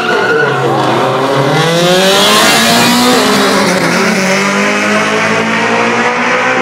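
Two small drag-race cars launching off the start line and accelerating hard down the strip, their engine notes climbing in pitch through the gears, with tyre noise.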